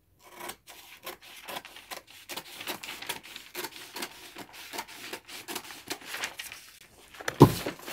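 Scissors cutting through a large sheet of pattern paper, a steady run of snips with paper rustling. A loud thump near the end.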